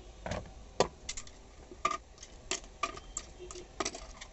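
Hard plastic end cover of a Usha Janome Allure sewing machine, just removed, being handled: a string of irregular clicks and knocks of plastic, the sharpest a little under a second in.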